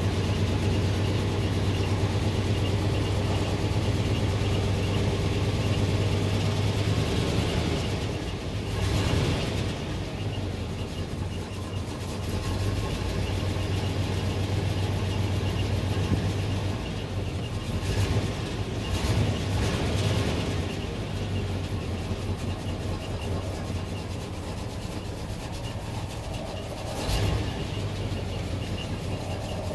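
Chevy factory 350 small-block V8 idling steadily, heard from inside the pickup's cab. There are a few brief swells in loudness about a third of the way in, twice around two-thirds of the way through, and once near the end.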